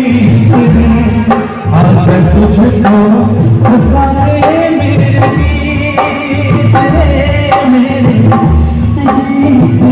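A song with singing over heavy bass beats about once a second, played loud through a DJ sound system.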